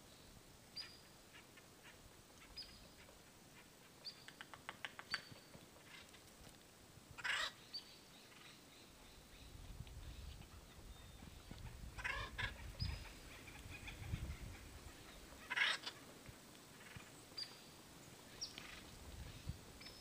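Acorn woodpeckers calling: short high chirps throughout, a quick run of clicks about four seconds in, and three loud harsh calls about seven, twelve and fifteen seconds in.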